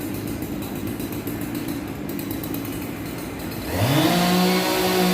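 Steady street traffic noise, then near the end a small engine revs up sharply and holds a high, steady pitch at full speed.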